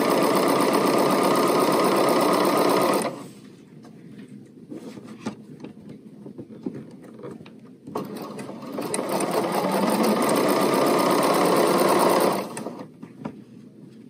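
BERNINA sewing machine stitching a straight seam along piping cord. It runs steadily for about three seconds and stops, then after a pause with a few faint clicks it starts again, picks up speed and runs for about four seconds before stopping near the end.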